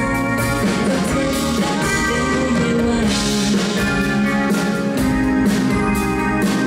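Live pop concert: a woman singing into a handheld microphone over full band accompaniment.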